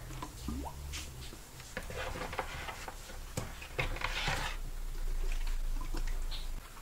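Thick homemade liquid laundry soap being poured into a plastic bottle, the liquid running in with a wet, splashy sound, amid clicks and rustles of plastic being handled.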